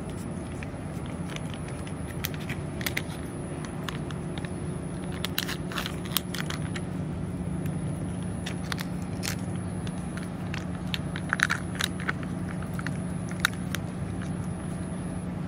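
Cat chewing and licking wet food from a metal bowl close to the microphone: irregular wet clicks and crunches, busiest in the second half. A steady low hum and a faint high whine run underneath.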